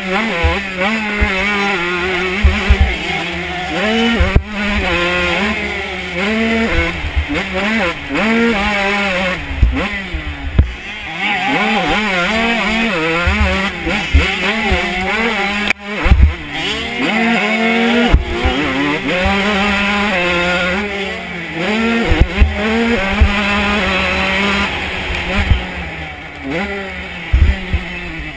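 125 cc two-stroke motocross bike engine, heard from a camera on the bike, revving up and dropping back again and again as the rider races around the track. Low thumps and wind rumble on the microphone come through under the engine.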